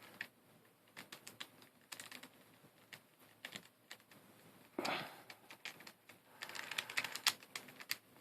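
Plastic pieces of a V-Cube 7 puzzle cube clicking and tapping as they are handled and fitted back into the cube. The clicks are light and irregular and come thicker near the end, with a brief louder rustle about five seconds in.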